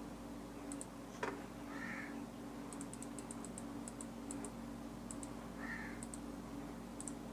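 Faint, sparse clicks of a computer mouse and keyboard, with a quick run of them about three seconds in, over a steady low hum.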